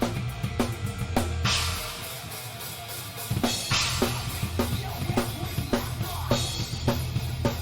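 Live rock band with the drum kit up front: kick, snare and crash cymbals keep a steady beat. The low end drops away about a second and a half in and comes back with a cymbal crash about three and a half seconds in.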